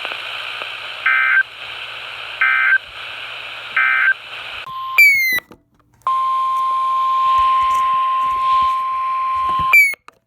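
NOAA Weather Radio over a hiss of static: three short two-tone data chirps about a second and a half apart, the coded end-of-message signal closing the previous broadcast. About five seconds in the weather radio's steady single-pitch alert tone begins, broken off twice by brief glitches and dropouts.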